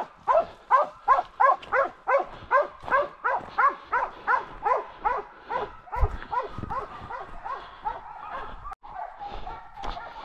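Hunting dog barking in a fast run of short, high yelps, about three a second, growing fainter after about six seconds.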